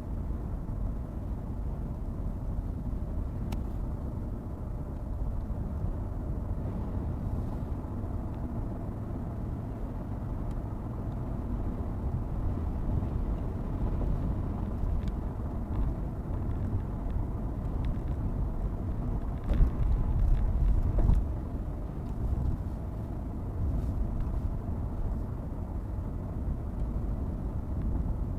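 Car being driven, a steady low rumble of road and engine noise, briefly louder about two thirds of the way through.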